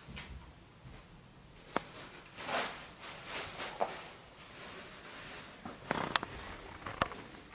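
Plastic food packaging rustling and crinkling as it is handled, in short bursts, with a few sharp clicks and taps.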